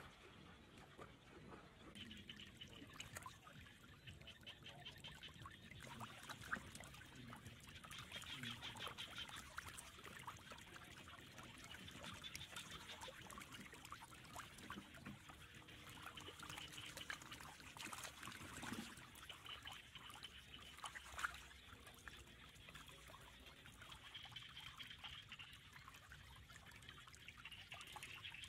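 Faint water trickling and splashing, with short high trills that repeat every few seconds.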